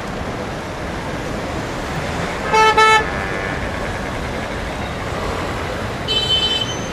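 Street traffic noise, steady throughout, broken by two short car-horn toots about two and a half seconds in and a higher-pitched horn honk near the end.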